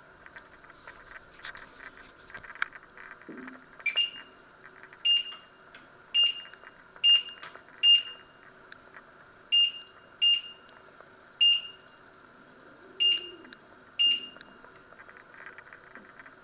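Touch controls of a glass-top electric hob beeping as its buttons are pressed: about ten short, identical beeps at uneven intervals, each confirming a press as the cooking level and timer are set.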